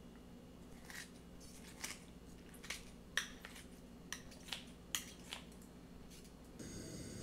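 Kitchen scissors snipping kimchi in a bowl: around ten short, crisp snips at an uneven pace.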